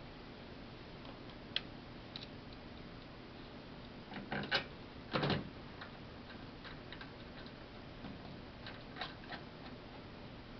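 Scattered small metal clicks and taps of a screwdriver and screws being handled and driven into a metal instrument panel, with a louder short clatter about five seconds in.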